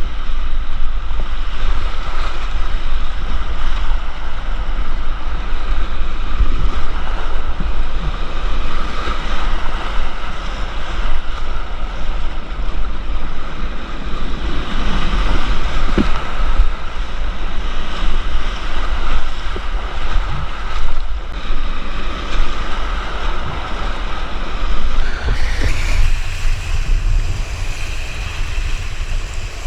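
Rushing whitewater of a creek rapid heard from a kayak, with rumble from the river buffeting the microphone. The rush shifts higher in pitch about 25 seconds in.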